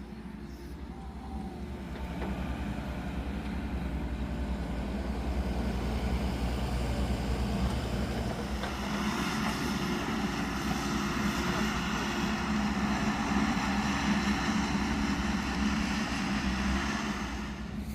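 An engine running steadily with a low drone. It grows louder about two seconds in, and from about nine seconds a rushing noise joins it, as under heavier working load.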